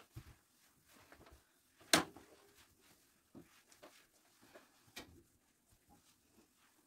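Wooden door knocking as it is handled: one sharp clack about two seconds in with a brief ring, and a lighter knock near five seconds, amid soft rubbing and small handling sounds.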